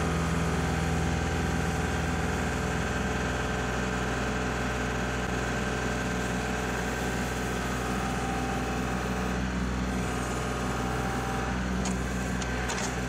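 Kubota L3901 tractor's three-cylinder diesel engine running steadily while the backhoe works, with a few faint clicks near the end.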